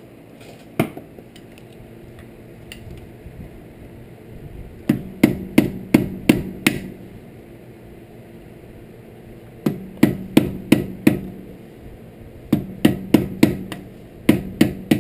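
Hammer striking a chisel held against a CV axle nut, staking the nut's collar into the notch in the axle shaft. There is one strike about a second in, then three quick runs of five to eight sharp metal strikes, each with a short ring.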